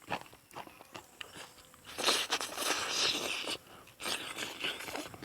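A person chewing and biting food close to the microphone: small wet clicks of chewing, then a louder stretch of crunching about two seconds in and again near the end.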